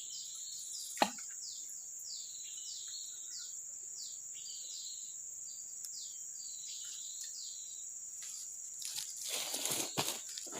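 Outdoor ambience of insects: a steady high-pitched drone with a string of short, quickly repeated falling chirps over it. A single sharp click about a second in, and a short burst of rustling near the end.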